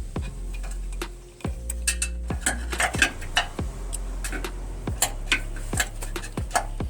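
Irregular metallic clinks and clicks of hand tools and metal parts being handled, several a second at times, over a steady low hum.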